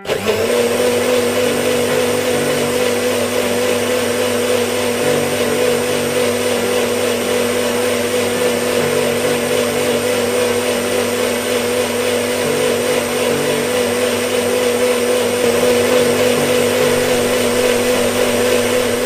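Electric blender running at full speed, blending vegetables into a paste: a steady motor hum over a loud whirr, starting abruptly.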